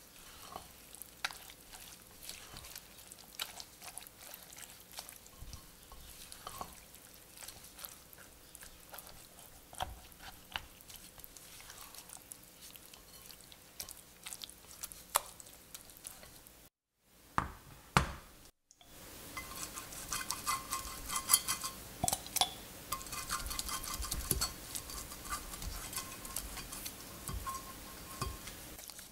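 A spatula stirs a wet batter of grated zucchini and potato in a glass bowl: soft squelches with light taps and scrapes against the glass. After a brief silence about 17 seconds in, the scraping and tapping come back louder and busier.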